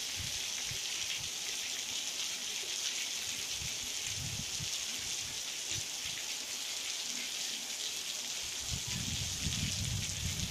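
Steady rain falling, an even hiss, with low rumbles on the microphone that come more often near the end.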